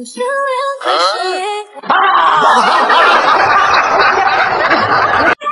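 A short stretch of voices, then about three seconds of loud, dense laughter that cuts off suddenly near the end.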